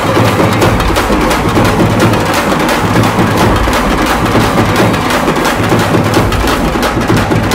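Loud up-tempo dance music with a fast, steady percussion beat.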